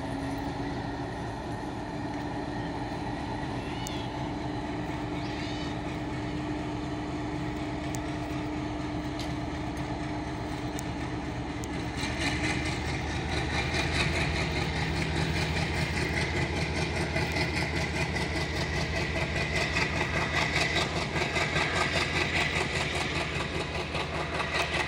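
Indian Railways WDM-3D diesel-electric locomotive running as it hauls a passenger train out along the platform, a steady engine hum. From about halfway the rumble and rhythmic clatter of the coaches' wheels on the rails grows louder as the coaches roll past.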